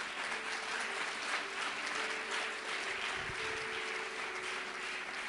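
Congregation applauding, with a steady held tone underneath.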